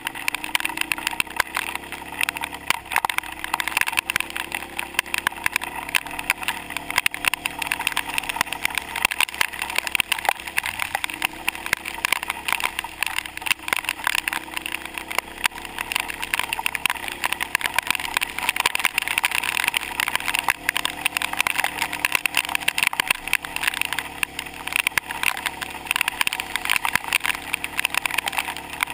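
Kawasaki KFX700 ATV's V-twin engine running under the rider's throttle, its pitch rising and falling, beneath a dense, rapid crackle of rain and hail striking the waterproof camera housing.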